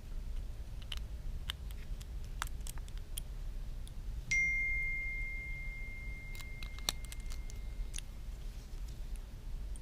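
Small sharp clicks and taps of metal tools and phone parts being handled during an iPhone repair. About four seconds in, a single high ringing tone starts suddenly and holds steady for about four seconds, slowly fading.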